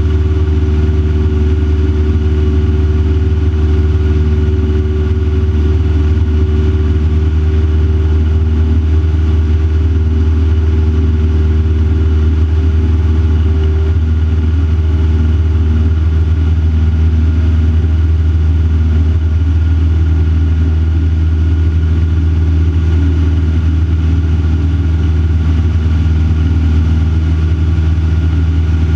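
Van's RV-4 light aircraft's piston engine and propeller droning steadily in cruise flight, heard from inside the cockpit. The tone shifts slightly about halfway through.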